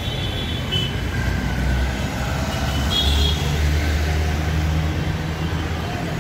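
Busy city-street traffic noise: a steady low rumble of vehicle engines and tyres, growing heavier for a couple of seconds around the middle as a vehicle passes close.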